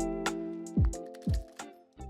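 Outro background music: held chords over a drum beat about every half second, fading down and cutting out near the end.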